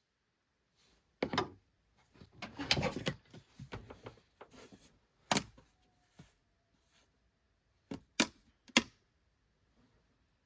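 Scattered sharp clicks and knocks of hands handling things at the engine while getting ready to add oil, with a busier cluster about two to three seconds in and a few single sharp clicks later.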